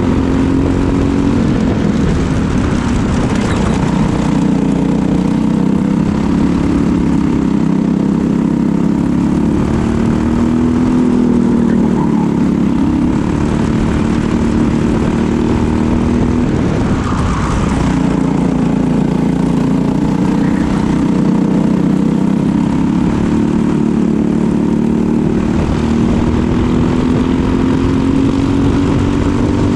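Briggs & Stratton LO206 single-cylinder four-stroke kart engine running at race pace, its pitch dropping several times as it slows for corners and climbing again along the straights.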